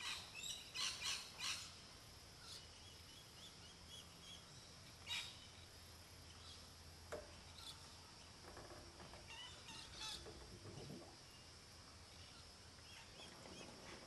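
King parrots calling: a quick run of four sharp high calls at the start, then single chirps about five and ten seconds in, over a faint steady high hiss.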